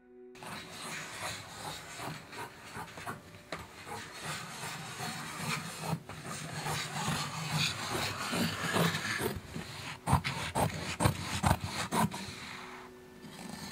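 Heavy sailcloth rubbing and rustling as it is handled on a table, then a run of sharp scissor snips about ten seconds in as the cloth is cut. A soft ringing tone comes back near the end.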